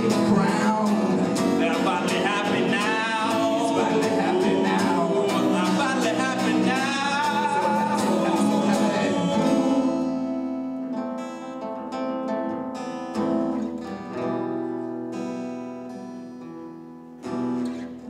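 A live acoustic guitar is strummed under a man's singing, with long wavering notes. About ten seconds in the voice stops and the guitar carries on alone, quieter, in separate strums, with a fresh strum near the end.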